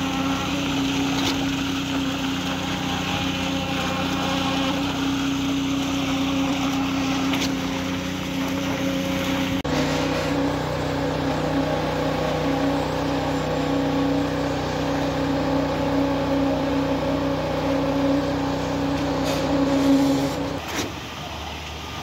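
Concrete pump truck's engine running steadily while it pumps concrete through the boom hose, a constant hum with held tones. The hum shifts abruptly about ten seconds in and again near the end.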